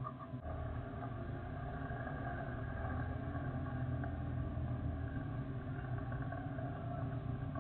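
Boeing 747-8F's four GEnx turbofans running at taxi power: a steady jet rumble with a thin whine above it.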